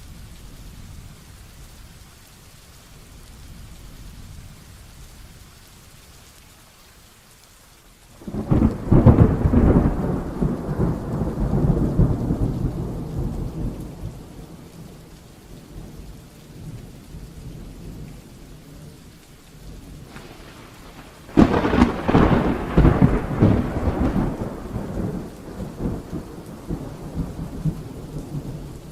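Heavy rain falling steadily, broken by two thunderclaps, one about eight seconds in and another about twenty-one seconds in, each a sudden crack trailing off into a rumble over several seconds.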